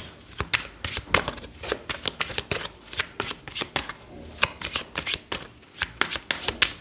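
A tarot deck being shuffled by hand: a quick, irregular run of crisp card snaps and riffles.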